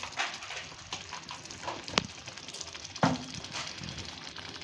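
Thick pav bhaji bhaji simmering in a pan, crackling and popping as bubbles burst through the mash, with two sharper pops about two and three seconds in.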